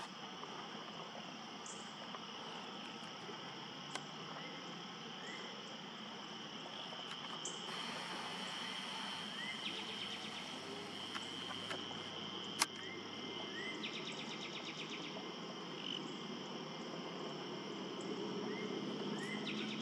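Steady, faint, high-pitched chirring of an insect chorus. A faster pulsing trill comes in briefly three times, faint short chirps sound now and then, and there is one sharp click about two-thirds of the way through.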